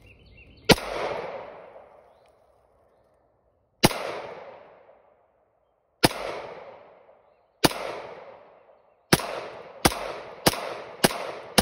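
Bear Creek Arsenal bufferless 9mm AR-style pistol firing 115-grain full-metal-jacket ball: eight single shots, a couple of seconds apart at first, then quicker near the end at about two a second, each trailing off in an echo. The gun is cycling and firing every round of ball ammunition in a function test.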